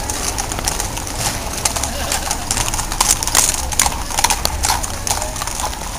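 Hooves of a herd of cattle clattering on street pavement as the herd is driven past: a dense, irregular patter of sharp clicks over a low rumble.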